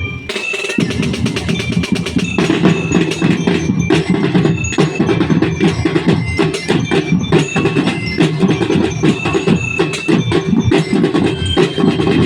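Percussion music: fast, dense drumming with high, ringing bell-like mallet notes over it.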